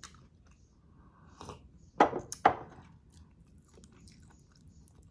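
Close-up mouth sounds of a person eating sinigang na pampano: soft wet chewing with small clicks, and two louder bites or crunches about two seconds in, half a second apart.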